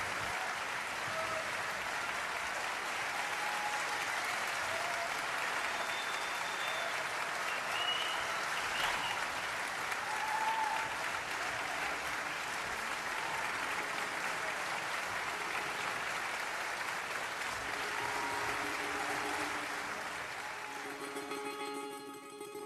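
A concert hall audience applauding steadily. Near the end the clapping thins and plucked-string music begins.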